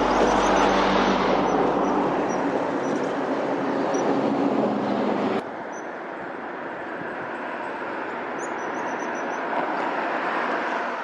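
Steady roar of vehicle noise with a low droning hum that cuts off suddenly about halfway through, leaving a quieter hiss. A few faint, short, high-pitched calls of a common kingfisher come through, mostly near the end.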